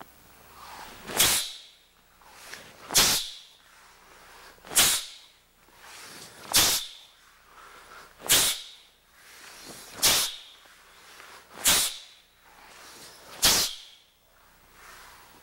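A Taekwon-Do uniform (dobok) swishing and snapping with each block of the Saju-Makgi four-direction blocking exercise: eight sharp swish-and-snap sounds, each swelling briefly and ending in a crack, about every one and three-quarter seconds.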